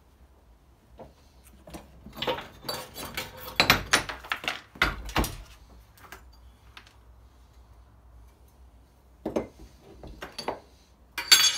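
Clatter and knocks of hard objects on a workbench as a ceramic hand basin is handled and tipped, with loose pieces rattling inside it. There is a busy run of clattering about two to five seconds in, then a few separate knocks near the end.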